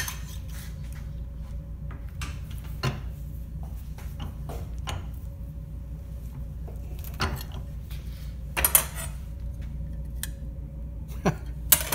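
Scattered metal clinks and knocks as a metal stirrup is handled at a cast-iron bench vise and set against a steel straightedge. The loudest cluster comes about two-thirds of the way in, over a steady low hum in the room.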